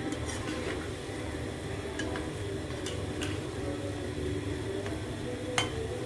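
Kalojam dough balls frying gently in oil on low heat in a black iron karahi, with a metal spatula clinking against the pan a few times as they are turned; the loudest clink comes near the end. A steady low hum runs underneath.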